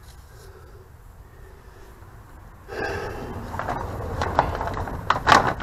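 A quiet stretch, then about halfway in, rustling and handling noises start, with several sharp clicks and knocks as he moves and handles parts beside the axle.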